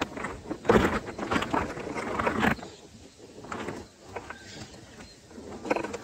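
Rustling and scratching at a bulbul nest as the nestlings shift and stretch up to beg, loudest in the first half, with a few faint short bird calls.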